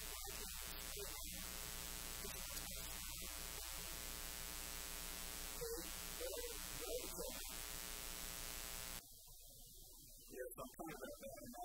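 Steady electrical mains hum with hiss, low in level, under a few faint indistinct murmurs. The hum cuts off suddenly about nine seconds in, leaving only faint, patchy sounds.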